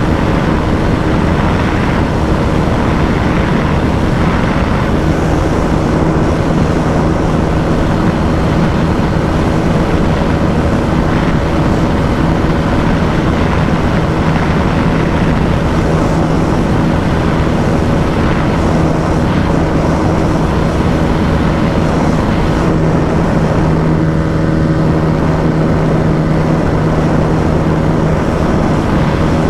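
Bajaj Dominar 250's single-cylinder engine running steadily at high revs at near top speed, under a heavy rush of wind over the microphone. The engine pitch holds constant with no gear changes.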